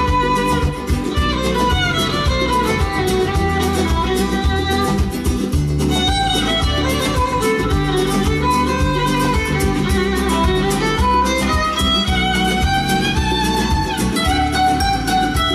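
Recorded music with a sliding melodic lead over a steady low beat, played back over a hi-fi system: Vandersteen Model 2Ci loudspeakers driven by a McIntosh MC2500 power amplifier and a Cary SLP-98L vacuum tube preamplifier.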